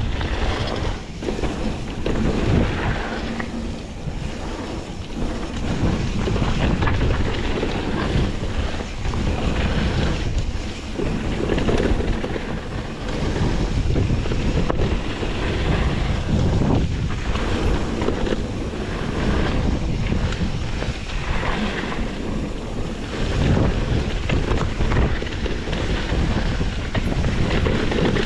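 Heavy wind buffeting the microphone: a dense, low rumble that swells and dips every second or two.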